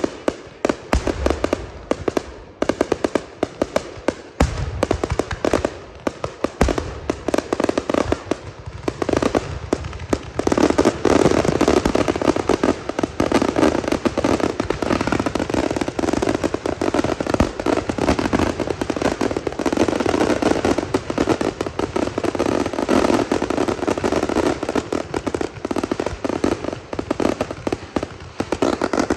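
Fireworks display: aerial shells bursting with sharp bangs and a few deep thuds, then, from about ten seconds in, a dense, almost continuous barrage of rapid bangs and crackle.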